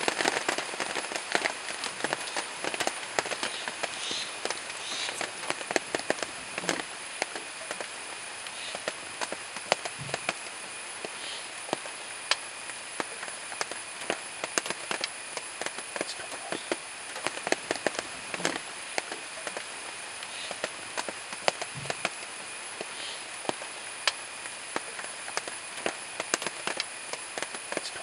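Asian elephants feeding in grass: irregular crackling and snapping of plants being torn up and chewed, over a steady high drone of insects.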